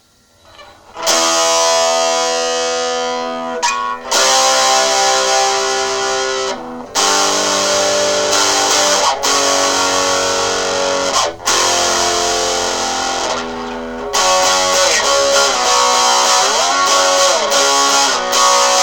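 Epiphone SG Junior electric guitar with a ceramic pickup, played through a small amp with overdrive: distorted chords strummed and held, cut off every two or three seconds, then bent, wavering notes near the end. A small, driven sound.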